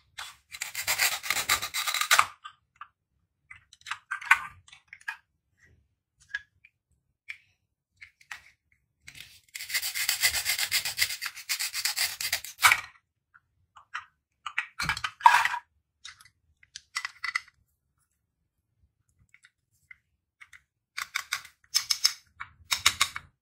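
Velcro strips tearing apart as a plastic toy knife splits velcro-joined plastic toy fruits into halves, in several tearing bursts, the longest about three seconds near the middle. Light clicks and taps of plastic pieces against a plastic cutting board come between.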